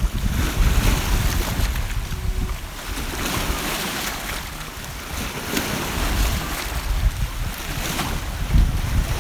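Sea surf washing, with wind buffeting the microphone in gusts that rumble loudest near the start and again near the end.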